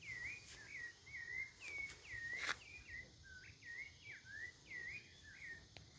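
A songbird singing a fast run of short whistled notes that swoop up and down in pitch, about two to three a second, stopping shortly before the end. A sharp click sounds once about two and a half seconds in.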